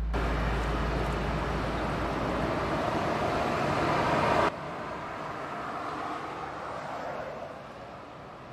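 Road traffic noise: a vehicle growing louder, then cut off abruptly about halfway through, followed by a quieter steady traffic hum that drops a little further near the end.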